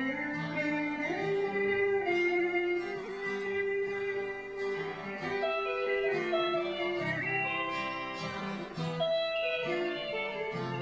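Instrumental break in a live folk song: guitar accompaniment under a melody line of long held notes.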